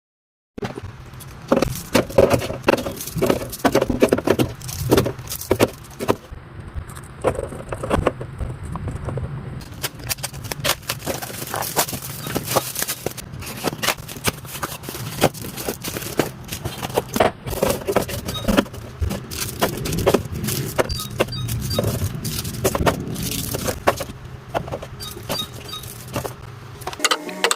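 Clatter of containers, jars and packaged food being handled and set down while restocking a refrigerator: many sharp clicks and knocks, over a steady low hum.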